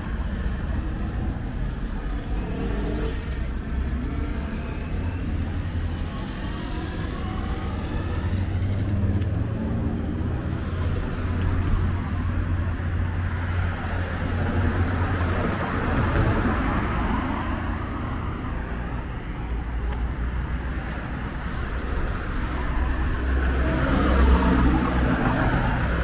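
Road traffic on a city street: cars passing one after another over a steady low engine rumble, with the loudest pass-bys about two thirds of the way through and again near the end.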